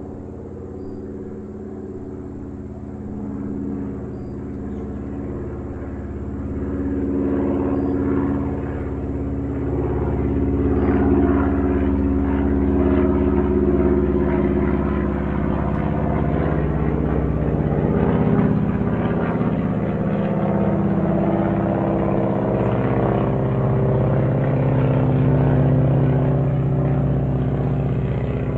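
Airplane flying overhead: a low, droning engine grows louder over the first ten seconds or so and then stays loud, its pitch slowly sinking as it passes.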